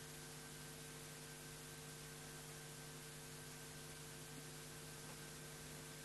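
Faint steady electrical hum over a constant hiss, with no other sound standing out.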